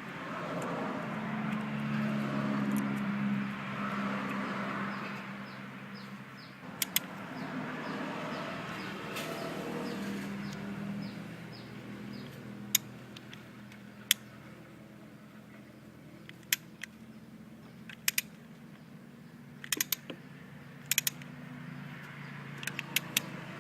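Isuzu D-Max engine running with a steady low hum while metal tools clink and tick sharply against parts, the clinks scattered through the second half.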